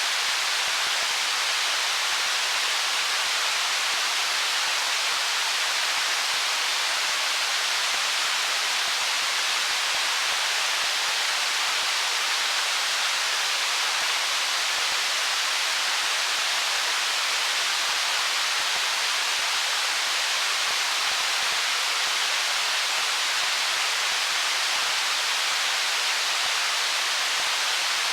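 Water of a stream rushing over rocks: a steady, even hiss with no breaks or distinct splashes.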